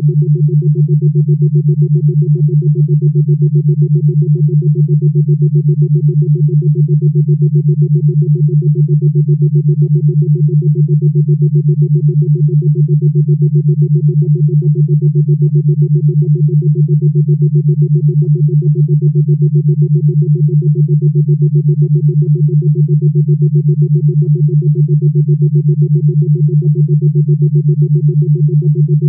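Steady synthesized drone tone: a low hum with a fainter higher tone above it, pulsing quickly and evenly without change. It is the kind of tone played in 'listen to this sound' relaxation and therapy tracks.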